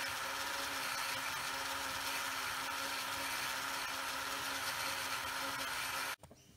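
Small electric motor and drive of a Powerline T-Class model locomotive running steadily, its powered wheels spinning in place on a paper towel to scrub grime off them. The whir cuts off abruptly near the end.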